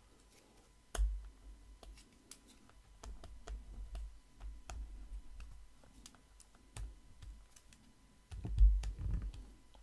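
Stylus tapping and scraping on a tablet while handwriting: a scatter of faint irregular clicks with a few low thumps, the loudest cluster near the end.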